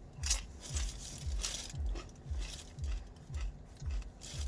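Kettle chips being bitten and chewed close to the microphone: sharp, crisp crunches over a steady low thud of chewing about twice a second.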